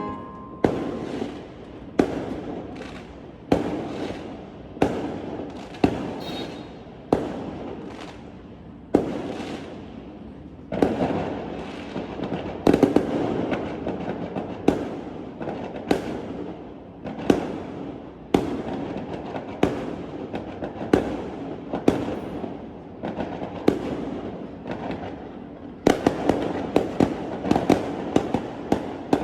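Fireworks going off: sharp bangs every second or two, each fading into a rumbling echo, coming thicker and faster near the end.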